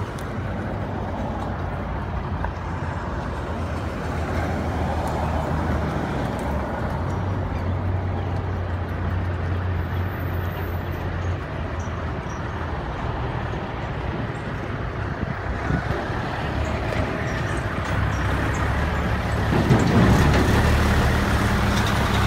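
Sterling dump truck's diesel engine running with a steady low hum, growing louder over the last few seconds as the truck drives up and passes close by.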